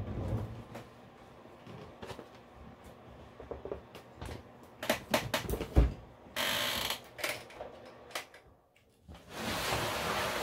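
Items being handled and moved about: scattered knocks and clicks, with bursts of rustling about six seconds in and again near the end.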